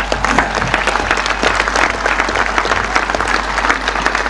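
A large crowd applauding, a dense, even patter of many hands clapping that starts at once and holds steady.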